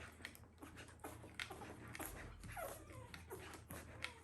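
Newborn puppy giving a few faint, short whimpering squeaks while sucking hungrily at a bottle nipple, with small wet sucking clicks in between.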